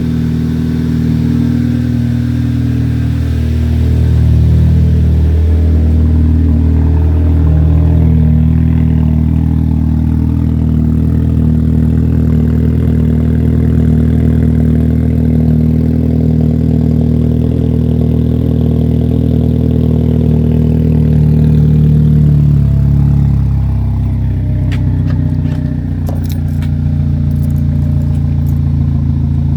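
Volkswagen MK6 GTI's turbocharged 2.0-litre four-cylinder engine idling steadily after a cold start. Its note shifts about three-quarters of the way through, and a few sharp clicks follow near the end.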